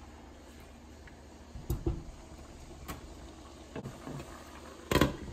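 Orzo and broth bubbling at a boil in a pot on the stove, under a few knocks of utensils and cookware. The loudest is a sharp clatter about five seconds in, as the pot's glass lid is handled to cover it.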